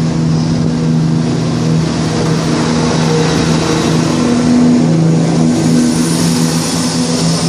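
Class 170 Turbostar diesel multiple unit pulling out of the station, its diesel engines running under power with a steady low drone.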